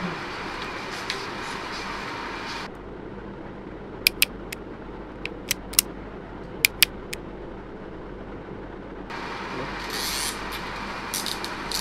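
Sharp plastic clicks, about nine in three seconds, from cable ties being pulled tight to clamp a bicycle light to the handlebar, over steady background noise.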